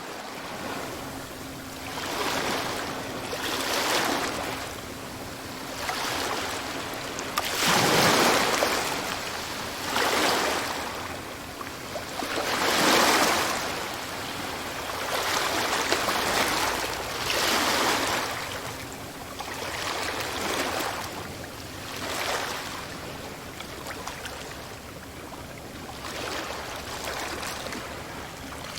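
Sea waves washing onto a shore, surging and falling back every two to three seconds, the biggest swells about 8 and 13 seconds in.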